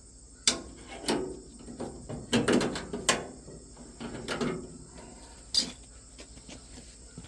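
Irregular clanks and knocks of tools and metal parts being handled, about eight in all and loudest in the first half, with crickets chirping steadily behind them.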